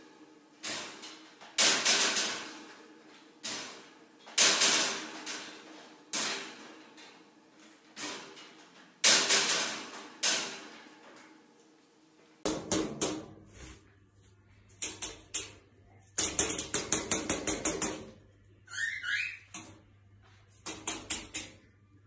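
Wire parrot cage with an umbrella cockatoo inside, clanking again and again, about one loud ringing clank a second for the first half. After that come fast clicks and rattles over a steady hum, with one short rising squeak a little before the end.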